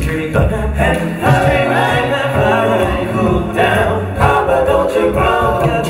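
Male a cappella vocal ensemble singing close harmony without instruments, with a deep sung bass line held under the chords.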